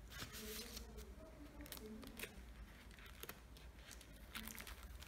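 Faint rustling and sliding of photo album pages as they are handled and turned.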